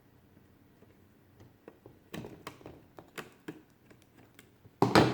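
Small clicks and taps of a screwdriver and the plastic case of a transistor radio being handled while its screws are removed, with a louder knock near the end.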